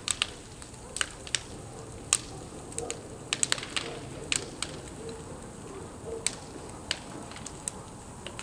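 A burning Porsche Cayenne SUV crackling, with irregular sharp pops every fraction of a second to a second over a steady background hiss.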